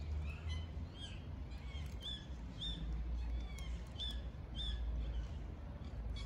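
Small birds chirping: short high chirps repeated roughly every half second, over a steady low background rumble.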